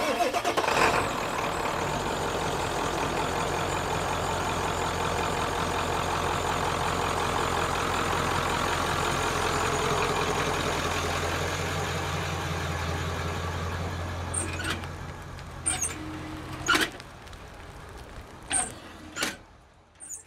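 A 1996 Ford F-350's 7.3-litre turbo-diesel V8 pulls a fifth-wheel trailer slowly past close by. It is loudest about halfway through, then fades as it moves off, with a few short sharp knocks near the end.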